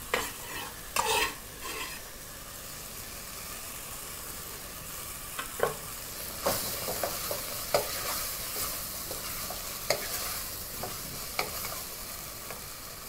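Chopped ginger going into a pot of carrots sizzling on the stove, then stirred in with a wooden spoon: a steady sizzle with irregular knocks and scrapes of the spoon against the pot.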